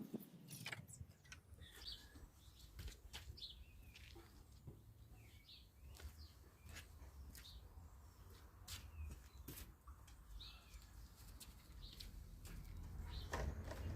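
Faint small-bird chirps, with scattered light clicks and a low steady rumble underneath.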